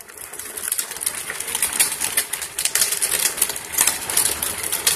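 Hard plastic wheels of a child's ride-on toy rolling over rough concrete, a dense, rapid rattling clatter that builds up over the first second.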